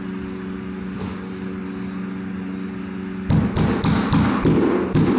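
Laminate floor planks being knocked into place: a quick run of hard thumps starting a little past three seconds in, over a steady low hum.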